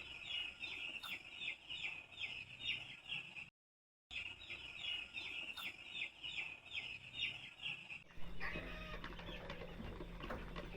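Chicks peeping over and over, about three short falling calls a second, broken once by a brief silence. In the last few seconds a steady low hum sits under fainter, mixed bird calls.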